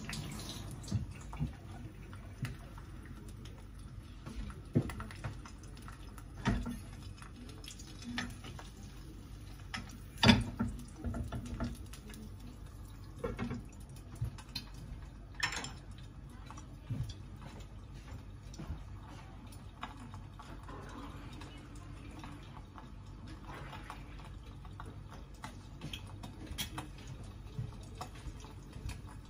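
An egg frying in oil in a non-stick pan, with faint scattered crackles and pops, among the clicks and knocks of kitchen handling as a glass lid is set on the pan; the loudest knock comes about ten seconds in.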